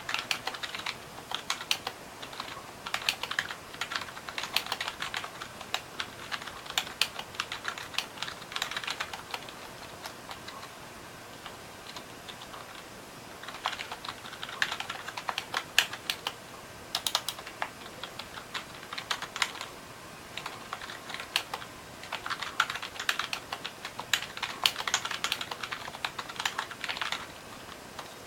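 Typing on a stormX K3 keyboard: rapid runs of key clicks. The typing pauses for a few seconds near the middle, then resumes.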